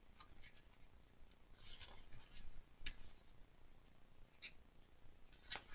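Faint, scattered paper rustles and soft ticks: the pages of an oracle card guidebook being leafed through.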